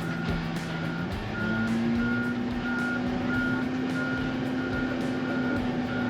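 Backup alarm on heavy snow-removal equipment beeping steadily, about one and a half beeps a second, over a running engine that speeds up a little over a second in and then holds steady.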